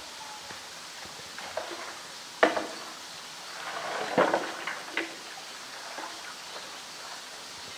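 Polar bear knocking a large toy ball about with its paws and mouth on a concrete ledge. There is one sharp knock about two and a half seconds in, then a cluster of knocks and scuffs around four to five seconds in, over a steady background hiss.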